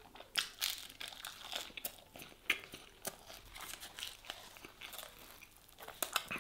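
Chewing of crusty toasted bread, with short crunches throughout, and then a loaf of cheese-topped toasted bread being torn apart by hand, with a cluster of crackles near the end.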